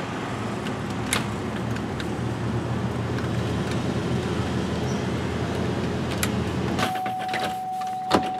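Plastic dashboard trim bezel of a Chevy Trailblazer being fitted around the radio and pressed into place, with sharp clicks as it snaps in at about one, six and eight seconds, the last the loudest. Under them runs a steady rushing noise with a low hum, which drops near the end as a thin steady tone begins.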